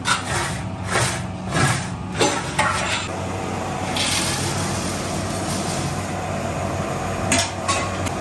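A large spatula scraping and stirring vegetable samosa filling in a big pan, about two strokes a second for the first three seconds, then two more strokes near the end. A steady rush and low hum run underneath.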